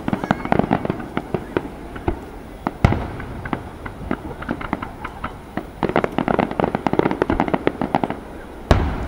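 Aerial fireworks shells bursting: many rapid sharp pops in dense clusters near the start and again from about six seconds in, with two heavy booms, one about three seconds in and one near the end.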